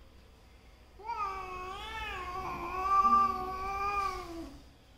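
A domestic cat giving one long, wavering yowl that starts about a second in and lasts about three and a half seconds, growing loudest toward the end: a warning yowl in a standoff between two cats.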